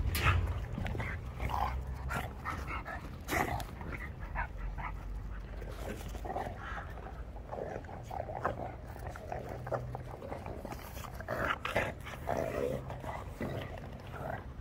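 Shar-Pei puppies playing together, with short puppy vocal sounds scattered throughout.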